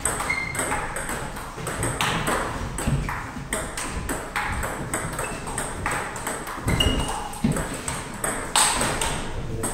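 Table tennis rally: the plastic ball clicking off the paddles and bouncing on the table in a steady back-and-forth, about two hits a second.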